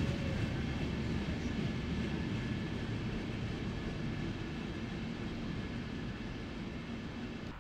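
Vienna U-Bahn train pulling out of an underground station, its running noise fading steadily as it leaves.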